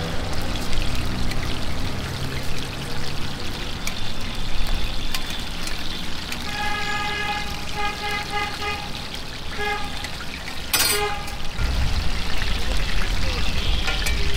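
Chicken chap pieces sizzling in hot oil in a large shallow frying pan, a steady hissing sizzle with metal tongs and spatulas clicking against the pan. Around six seconds in, a vehicle horn sounds a quick run of short beeps, and in the last few seconds an engine rumbles past.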